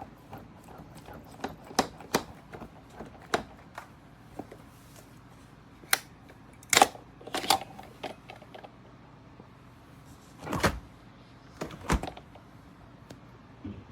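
Irregular sharp clicks and knocks from a French-door refrigerator lock being worked by hand, with the loudest knocks about seven, ten and a half and twelve seconds in.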